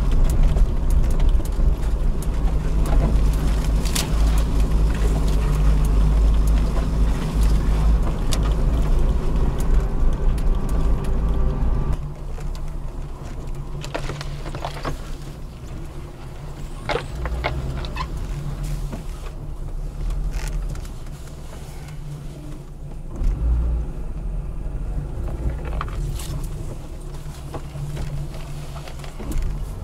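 Lada Niva's engine running steadily at low speed while the car crawls over a rough forest track, with knocks and rattles from the body and suspension over the bumps. About twelve seconds in the engine sound drops to a lower level, and soon after, branches brush and scrape against the car.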